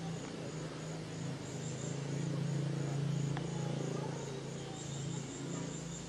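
Insects chirring in a high, even pulse, about three times a second, over a steady low hum that swells in the middle; one short sharp note about three seconds in.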